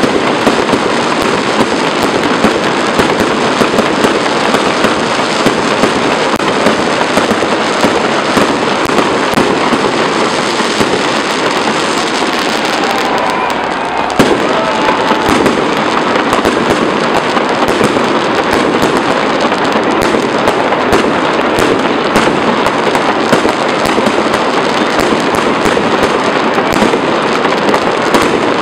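Fireworks display: a dense, unbroken barrage of crackling and banging shells, with one especially sharp bang about 14 seconds in.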